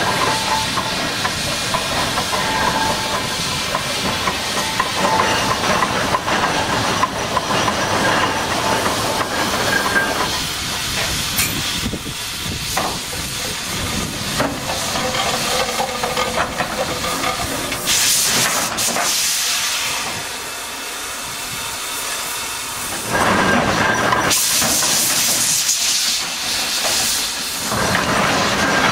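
Ruston Proctor steam excavator working its shovel into a gravel pile, its steam engine giving a continuous hiss. Louder rushes of steam come about two thirds of the way through and again near the end.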